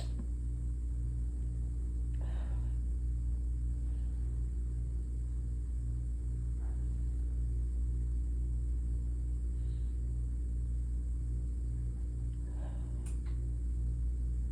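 Steady low hum that pulses about twice a second, with a few faint nasal breaths from a stuffed-up woman holding back a sneeze.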